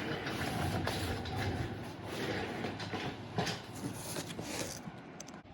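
Air hissing steadily as a bicycle inner tube is inflated from a shop air line, with a few small clicks, cutting off shortly before the end.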